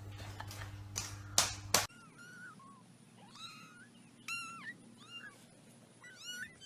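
A few sharp clicks over a low hum, then a series of short, high-pitched cat meows, about seven, rising and falling in pitch and spaced irregularly over the last four seconds.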